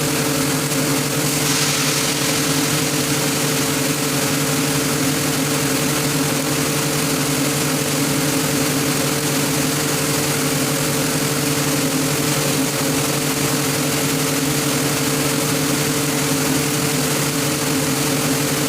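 Atlas Copco GA 165 oil-injected rotary screw air compressor running with a steady, even hum and hiss.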